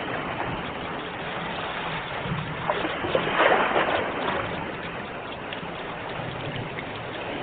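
Sea waves washing in steadily. One wave breaks and surges louder about three and a half seconds in.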